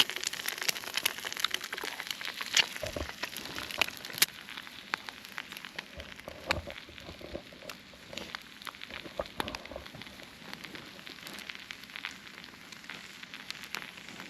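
Wood campfire crackling and popping, with irregular sharp snaps over a steady hiss.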